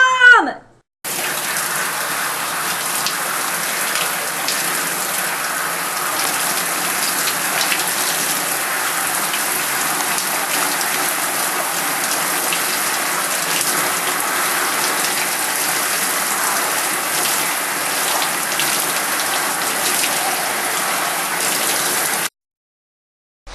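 Shower head spraying water steadily onto a person's hair and into the tub, a steady hiss of falling water. It starts abruptly about a second in and cuts off abruptly near the end.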